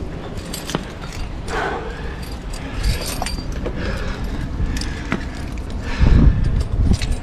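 Metal climbing gear, carabiners and cams on a harness rack, clinking and jangling as the climber moves, with low bumps and rustling against the body-mounted microphone, loudest about six seconds in.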